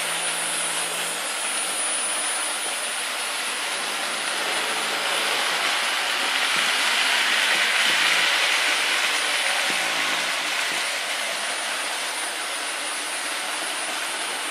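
Hornby OO gauge model trains running on the layout's track: a steady rolling rumble and hiss of metal wheels on rail and electric motors. It swells to its loudest about halfway through as the Royal Train coaches pass close by, then eases off.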